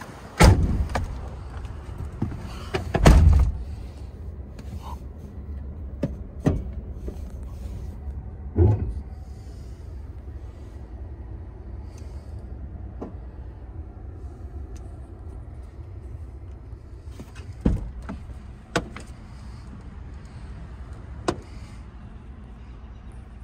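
Handling knocks and thumps inside a pickup truck's cab, the loudest about half a second and three seconds in, with a few lighter knocks later, over a low steady rumble.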